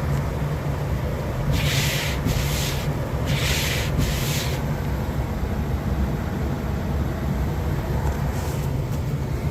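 Steady low road rumble inside a moving car, with four short rubbing swishes between about one and a half and five seconds in, and two fainter ones near the end.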